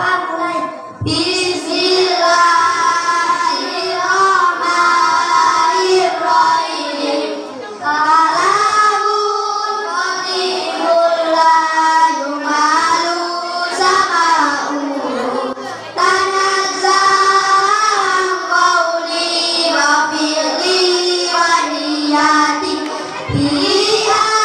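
A group of children singing a song together into microphones, in held, gliding phrases with short pauses for breath.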